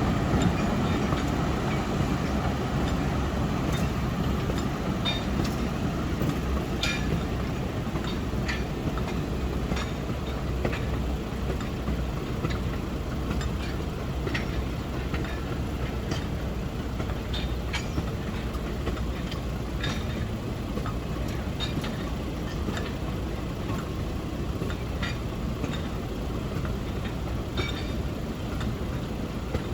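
Narrow-gauge sugar cane train rolling past, its wagons' wheels clicking irregularly over the rail joints over a steady low rumble. The sound slowly fades.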